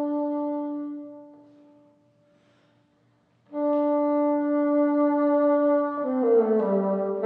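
Solo bassoon holding a long note that fades away into a brief pause, then taking up the same note again and holding it before a quick falling run of notes near the end.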